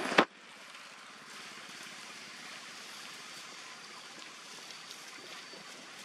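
A louder rushing noise cuts off with a sharp click about a quarter second in. A steady faint outdoor hiss follows, with a few soft ticks.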